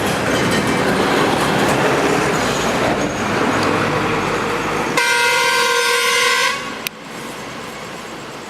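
Loud steady rushing noise, then a vehicle horn sounding one steady note for about a second and a half. It stops with a click, and the rushing drops to a quieter level.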